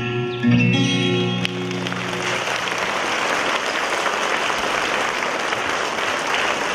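The last chord of the song's accompaniment rings out over the first two seconds or so. Audience applause breaks in and carries on steadily.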